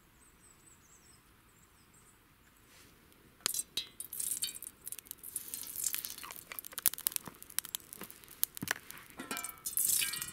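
Stainless steel cookware clinking and scraping against a metal wood-burning camp stove: a pot and a handled steel bowl being handled on the Bushbox XL. Quiet at first; the sharp clinks, some briefly ringing, begin a few seconds in and come in quick irregular runs.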